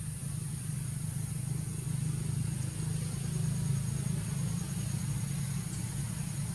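A steady low hum like an engine idling, with a constant high hiss above it.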